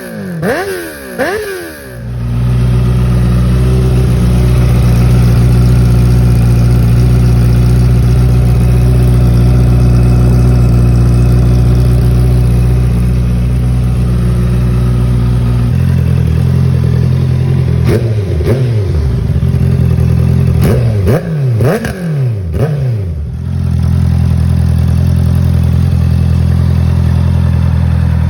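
Honda CBR650R's inline-four engine through a full titanium Akrapovic Racing Line exhaust being revved: a few quick blips at first, then held at a steady engine speed for about fourteen seconds. After a drop come several sharp blips in quick succession, and then it settles back to a steady held speed.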